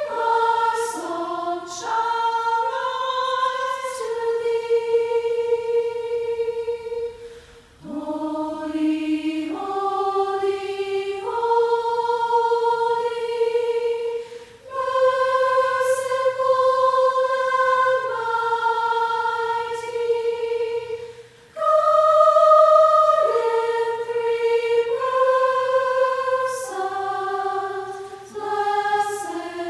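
Voices singing a hymn a cappella, in long held notes. The phrases are separated by short breaths about three times.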